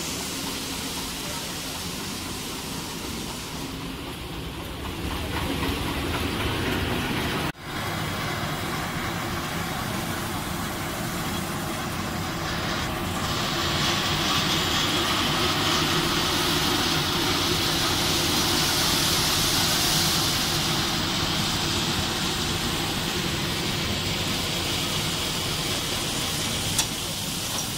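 Puffed rice cereal production line machinery running steadily, a continuous mechanical hum and hiss. The sound drops out for an instant about a quarter of the way in, and there is a single sharp click near the end.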